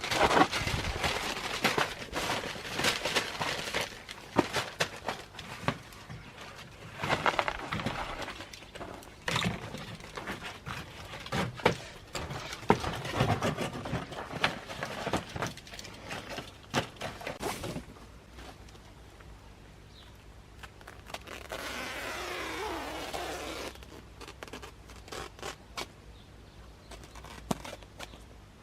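Crackling, rustling and scattered knocks of stiff cardboard being handled and laid on dry ground. It is busy for the first two-thirds, then quieter, with a steady low hum and a short buzzing sweep a little after two-thirds through.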